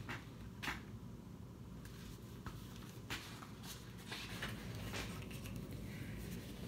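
Hardcover picture book being handled and a page turned: a few soft taps and a short paper rustle, faint over a low steady hum.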